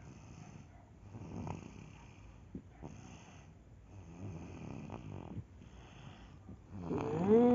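Loud snoring, a raspy snore roughly every second and a half. Near the end a voice with a clear, sustained pitch comes in over it.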